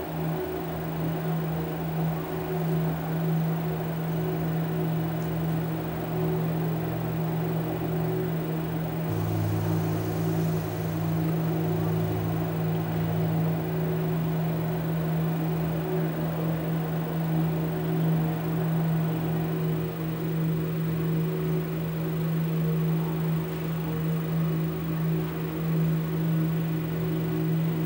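A steady low hum on one held pitch, with fainter higher tones above it. A deeper tone joins briefly about nine seconds in and again about twelve seconds in.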